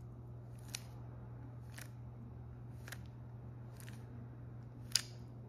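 Stickerless 3x3 speedcube being turned by hand through an algorithm, with a short, sharp click at each layer turn. There are about five clicks, roughly a second apart, and the loudest comes near the end.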